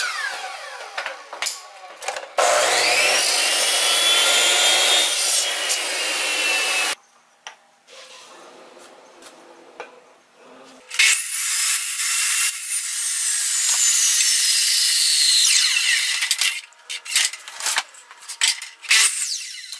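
Miter saw cutting wooden hub blocks at an angle: the motor runs, the blade cuts through the wood and winds down. This happens twice, with a quieter stretch of a few light clicks between, and a few knocks near the end.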